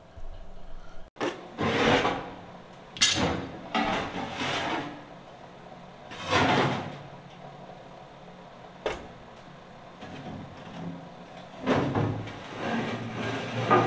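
Steel bin frame being handled and offered up onto a truck's steel body: a few scrapes and knocks of metal a second or more apart, with a sharp click about nine seconds in.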